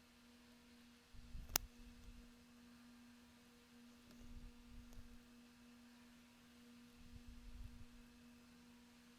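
Near silence with a steady low electrical hum, and a single sharp click about one and a half seconds in.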